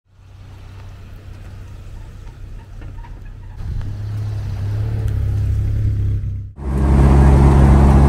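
Jeep Wrangler engine running with a low, steady hum that grows louder about three and a half seconds in. A little past six seconds it changes abruptly to the louder, steady sound of the Jeep driving on the road: an even engine drone under wind and road hiss.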